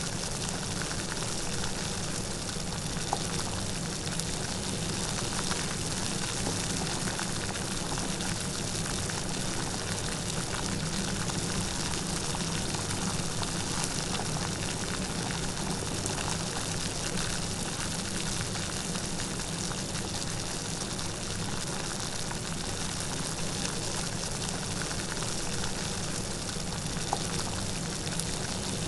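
Light rain falling steadily, a dense even patter of drops, with a couple of slightly louder single drop ticks.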